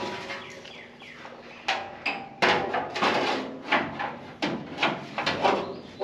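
New stamped-steel outer wheelhouse panel being worked into place by hand against the car body: a string of irregular sharp sheet-metal knocks and clunks, some with a short ring, as the panel is pushed and seated for a trial fit.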